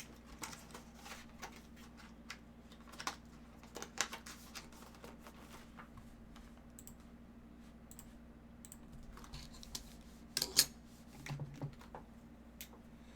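Scattered light clicks, taps and rustles from cardboard boxes and a sleeved photo being handled, with a sharper pair of knocks about ten and a half seconds in.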